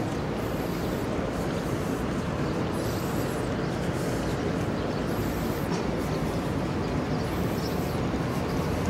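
Steady rumbling wind noise buffeting the microphone of a handheld phone carried through a crowd.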